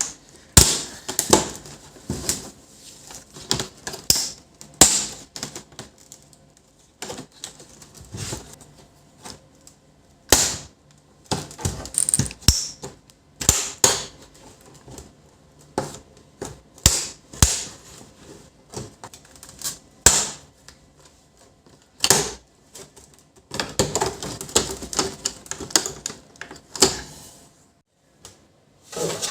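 Irregular sharp clicks, snaps and taps of an LCD monitor's plastic housing being pried open and taken apart by hand, coming in uneven clusters with short scraping noises between them.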